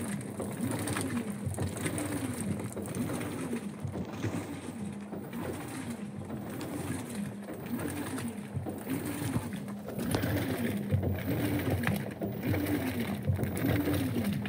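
Top-loading washing machine agitating a load of jeans on the normal cycle: the motor whines up and down in pitch about once a second as the agitator drives back and forth, over the churning of the tub.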